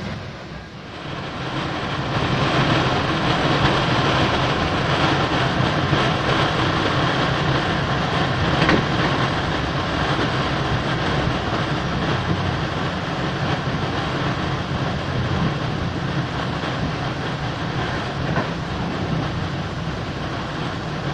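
Passenger train running at speed, heard from inside the carriage: a steady rumble and rush of wheels on track that swells about two seconds in, with a sharp knock about nine seconds in.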